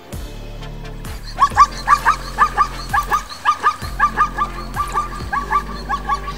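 Electronic music with a deep bass line. About a second in, it is joined by a rapid run of short, high, yelping animal calls, about four to five a second, that are louder than the music.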